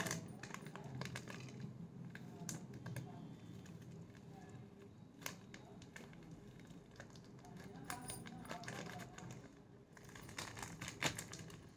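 Faint crinkling of a plastic packet and scattered light clicks and taps as baking soda is shaken out of it into a glass jar.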